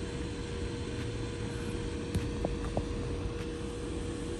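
Steady low background hum with a faint constant tone, and a few light ticks around the middle.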